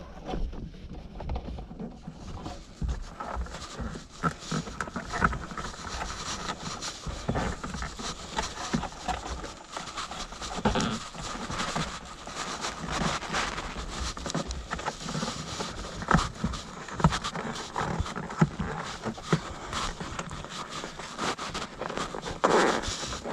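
Irregular rustling, scraping and small clicks of hands feeding a wire up behind a car's interior trim and headliner.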